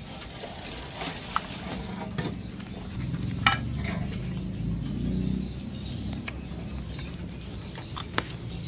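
Scattered light clicks and clinks over a low steady hum.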